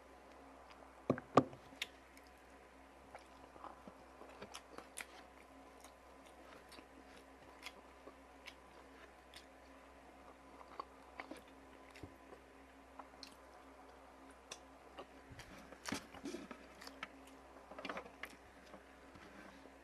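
A person chewing and eating: irregular soft mouth clicks and bites, with a few louder clicks about a second in and again near the end.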